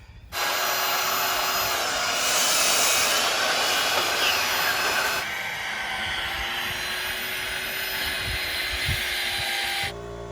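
Electric power sander running on a cedar framing board, sanding it down so it will fit. It starts suddenly, is loudest for a few seconds, then runs steadily a little quieter and cuts off near the end.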